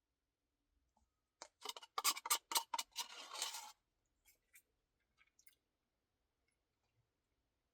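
Close-up eating sounds from a cookie-filled ice cream Blizzard: a quick run of sharp crunchy clicks about a second and a half in, then a short crackle, then faint scattered ticks.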